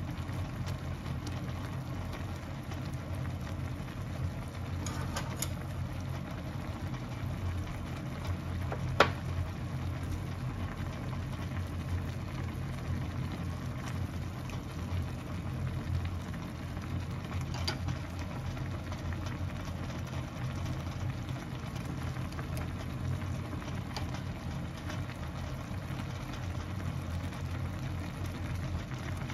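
Instant ramen broth simmering in an aluminium mess tin over a gas burner: a steady low burner rumble under soft, crackling bubbling, with a few light clicks and one sharp click about nine seconds in.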